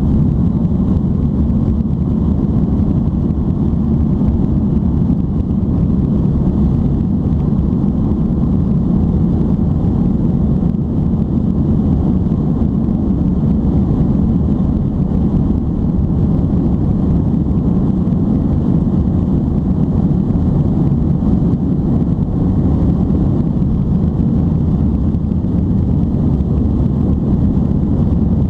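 Airbus A310-325 cabin noise during the takeoff roll: its Pratt & Whitney PW4000-series turbofans at takeoff thrust, heard as a steady, loud, deep rumble inside the cabin.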